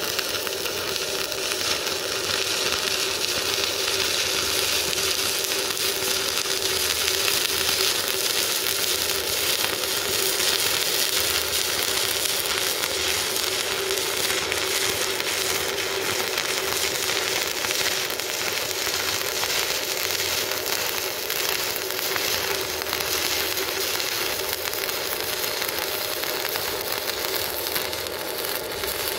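Stick (shielded metal arc) welding with a 2.5 mm rutile electrode on 4 mm steel, powered by a Ruris AS140MMA inverter: the arc crackles and sizzles steadily through one unbroken bead, with a steady hum underneath.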